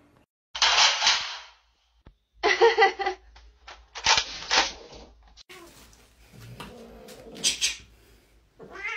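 Three loud, hissing bursts about a second long each in the first half, then near the end a cat starts yowling, one long wail that falls in pitch.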